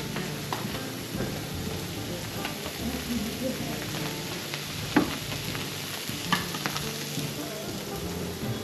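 Omelettes frying in pans on a gas burner: a steady sizzle, with a couple of sharp clicks about five and six seconds in.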